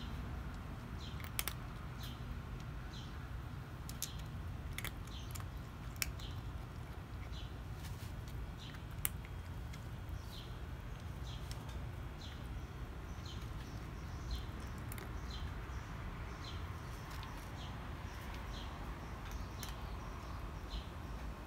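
A cat crunching dry kibble, with sharp irregular crunches and clicks of teeth on the hard pieces and the plastic tray. Over it a bird chirps again and again with short high falling notes, about one a second through the second half.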